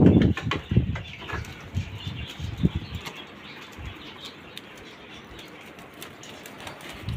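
Goats moving about in a pen, with scattered hoof taps and scuffles on a concrete floor. A few loud low thumps come in the first second.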